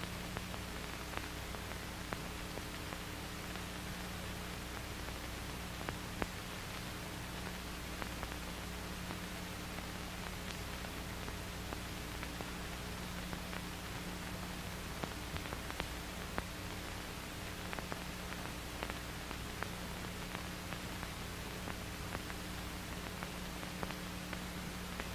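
Steady hiss and low hum of an old film soundtrack, with faint scattered clicks and crackles.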